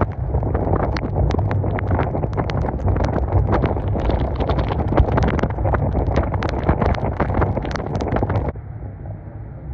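Wind buffeting the microphone of a camera mounted outside a moving car on a wet road, with a deep rumble of road noise and many sharp ticks. It cuts off suddenly about eight and a half seconds in, leaving a quieter, duller hiss.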